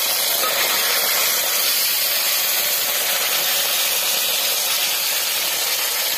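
Freshly added potato wedges frying in hot oil in a kadhai: a steady sizzle.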